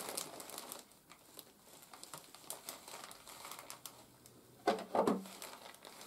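Plastic packaging (air-cushion bags and plastic wrap) crinkling and rustling as it is handled and pulled inside a cardboard box, with scattered small crackles and a brief louder sound about five seconds in.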